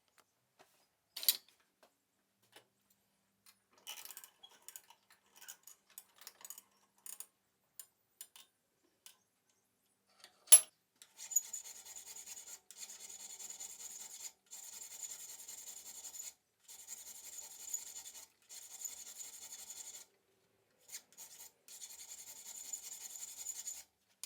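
Filing on metal for a folding knife: spells of steady rasping of a couple of seconds each, with short breaks between them. Before that come scattered small clicks and one sharp tap about ten seconds in.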